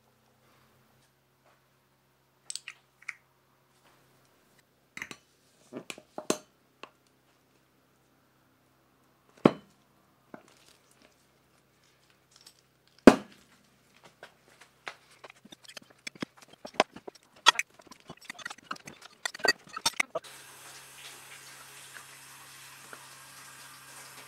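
Hand bottling of cider: glass bottles knocking and clinking together, and a red twin-lever crown capper clacking as it crimps caps onto glass bottles. The knocks and clinks are scattered, two of them much louder, and grow into a quick run of small clicks. In the last few seconds a steady hiss with a low hum takes over.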